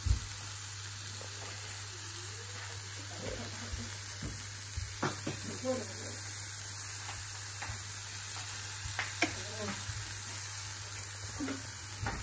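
Chickpeas and vegetables sizzling steadily in a frying pan on a gas hob. A few sharp knocks against the pan come near the start, about halfway through, at about three-quarters and near the end.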